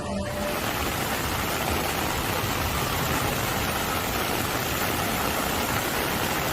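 Steady, even rushing noise with a low rumble beneath it, starting abruptly just after the start.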